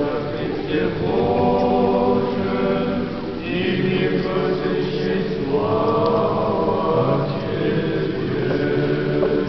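Orthodox church choir singing liturgical chant: several voices in harmony on long held notes, with a higher phrase entering about halfway through.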